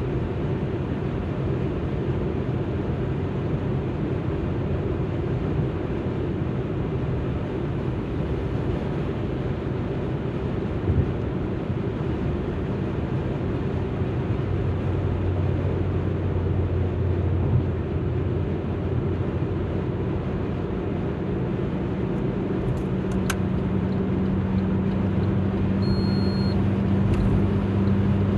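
Alfa Romeo MiTo driving along, a steady blend of engine and road noise. A low engine hum grows stronger from about halfway through.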